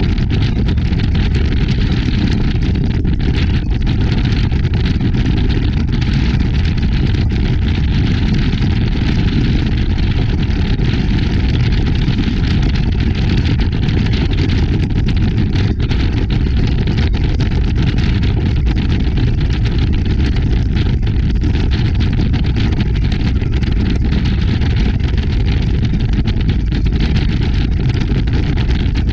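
Powerboat running at a steady speed across open water: a loud, unbroken drone of engine and rushing noise, with the most weight in the low end and no change throughout.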